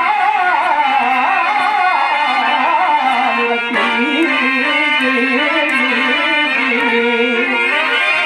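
Telugu stage-drama verse (padyam) sung with ornamented, gliding melody over harmonium accompaniment, with a short break in the line a little before the middle.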